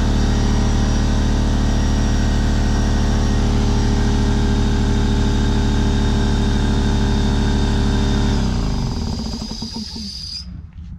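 Craftsman 33-gallon oil-free vertical air compressor running loud and steady. About eight seconds in it is switched off and winds down over a couple of seconds, with a high whine that cuts off near the end. The owner says it makes that noise when turned off and puts it down to the unit sitting out in the rain.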